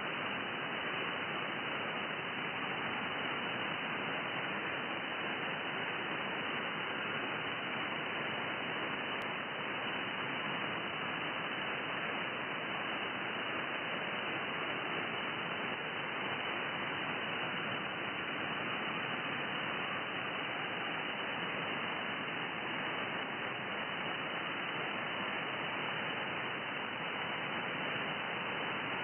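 Steady hiss of HF radio receiver static, the empty band noise that feeds the VARA HF modem's sound input, with no signal on frequency. It is even throughout and cut off above about 3 kHz, like a single-sideband receiver's audio.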